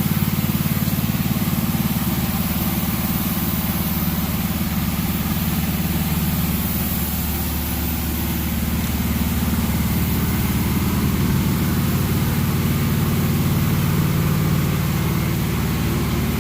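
A machine motor running at a steady speed, giving a constant low hum with a faint high hiss over it.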